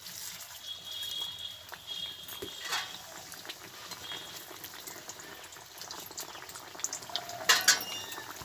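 Stuffed egg paratha deep-frying in medium-hot oil in a wok. The oil sizzles and crackles steadily from the moment the paratha goes in. A few sharp knocks come near the end.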